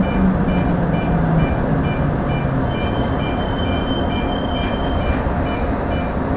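Toyo Rapid Railway 2000 series electric train running through a tunnel, heard from the cab, with a steady rumble of wheels on rail. A low motor hum steps down in pitch over the first couple of seconds. Paired high electronic beeps repeat about twice a second, and a steady high tone sounds over them from about three to five seconds in.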